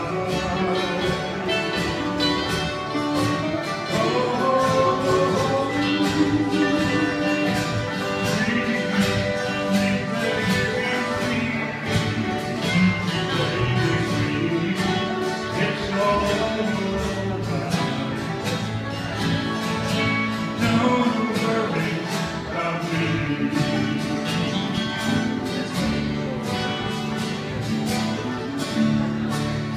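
Musicians jamming live: guitar-led country-style music with a steady beat.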